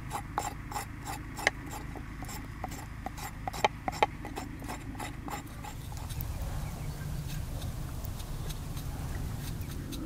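Kitchen knife slicing a carrot on a wooden cutting board: quick, irregular taps of the blade hitting the board, several a second. About halfway through, the taps give way to the softer scraping of a knife peeling a potato in the hand.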